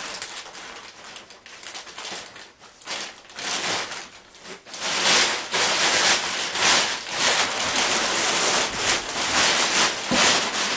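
Black plastic sheeting rustling and crinkling as it is handled: soft and patchy at first, then loud and continuous from about halfway in.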